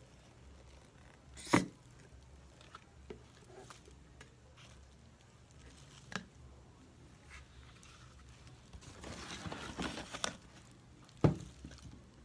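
Scattered handling noises: a sharp knock about 1.5 s in and another near the end, a few lighter clicks, and a short stretch of rustling and crinkling about two thirds of the way through.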